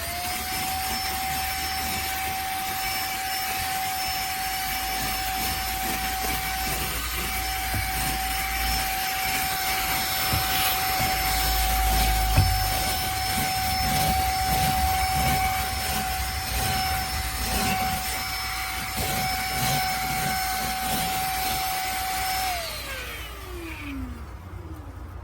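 Cordless wet-dry vacuum cleaner running with a steady high motor whine. It finishes spinning up as the sound begins and winds down with a falling pitch near the end.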